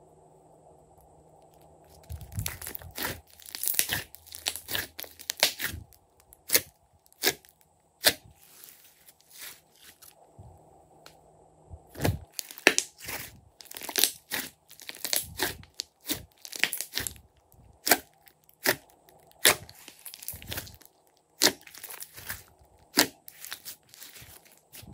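Glossy slime being squeezed, folded and stretched by hand, giving a quick, irregular run of sticky clicks and pops that starts about two seconds in.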